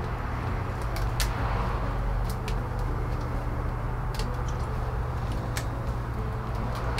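Steady low hum, with a few faint clicks scattered through it.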